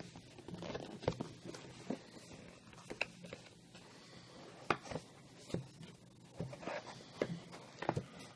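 Handling noise from opening a cardboard box: a string of separate light taps, scrapes and rustles of cardboard and packing material.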